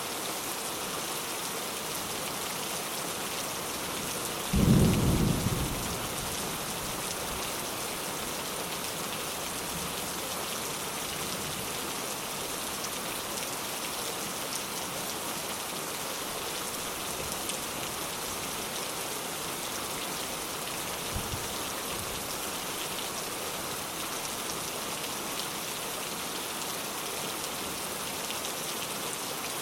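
Steady rain falling, with a sudden low rumble of thunder about four and a half seconds in that dies away within a second or two.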